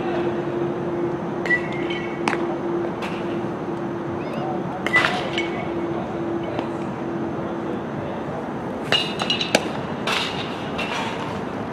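Outdoor ballpark ambience: a steady low hum that stops about two-thirds of the way through, with a few sharp clicks and clinks and faint distant voices.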